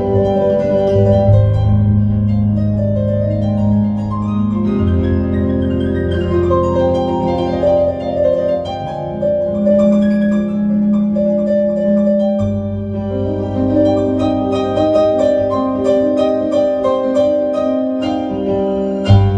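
Solo piano improvisation with held low bass notes. About five seconds in, a run of notes climbs and falls back. From about two-thirds of the way through, the right hand strikes rapid repeated chords over the sustained bass.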